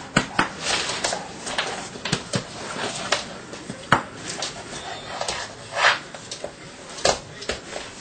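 Belgian Malinois puppy tugging at a cloth rag, its claws scrabbling and clicking on a wood floor with irregular sharp knocks and scuffs.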